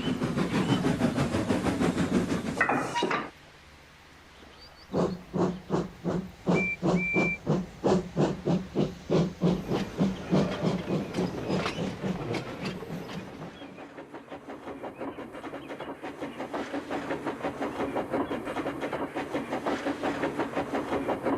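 Steam locomotive sound effects: a steady running sound cuts off about three seconds in. After a short lull the engine chuffs about twice a second, with two short high whistle peeps early on. Near the end the chuffs give way to a steadier running sound.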